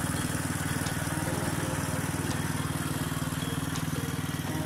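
Cub Cadet riding lawn mower's engine running steadily at an even speed as the mower drives along.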